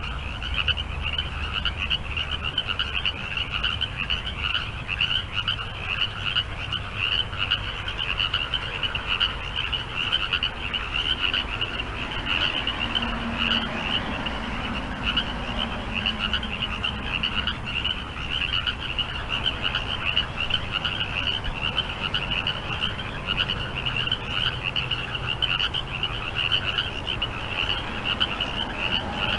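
A chorus of many frogs calling at once, a dense, fast pulsing trill that runs on without a break.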